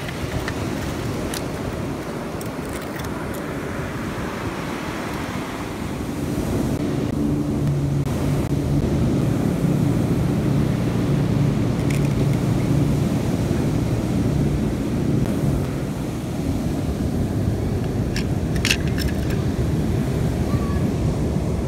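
Steady low rumble of surf and wind on the microphone. A low steady hum joins about six seconds in and fades around sixteen seconds, and a few sharp clicks stand out, the last pair near the end.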